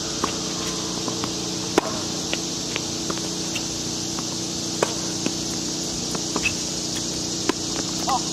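Tennis rally on a hard court: three sharp racket-on-ball strikes about three seconds apart, with fainter ticks of the ball bouncing between them, and a brief shoe squeak near the end as a player lunges. A steady high hiss sits underneath.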